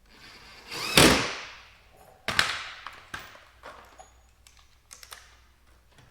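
Clunks and knocks from working on a Dodge Grand Caravan sliding door while its outside handle is fitted: a loud thud about a second in, a second sharp knock just after two seconds, then several lighter clicks.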